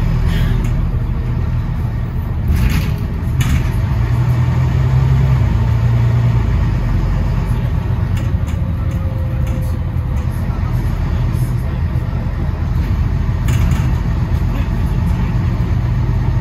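Bus engine running steadily, its note swelling briefly about four seconds in, with a few short clatters about three seconds in and again about thirteen seconds in.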